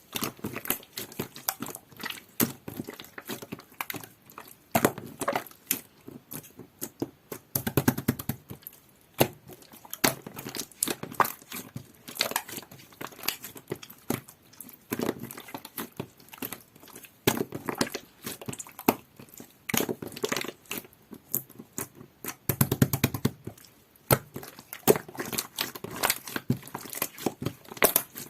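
Clear jelly-textured slime being squished and pressed by hand, giving dense wet clicks and pops that come in louder bunches every two or three seconds.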